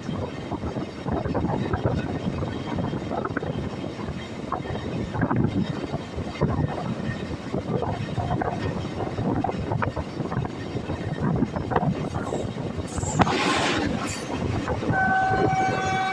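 Express train's coaches rumbling and clattering on the rails, with a short burst of hiss about 13 seconds in. A steady train horn starts near the end.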